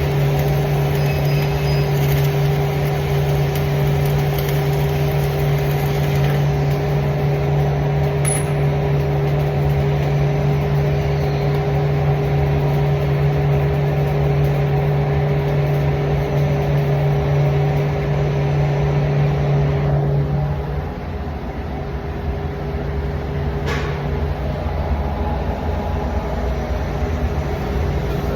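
A steady machine hum with a low tone and a higher tone over it, which drops away about twenty seconds in. A few sharp clicks can be heard over it.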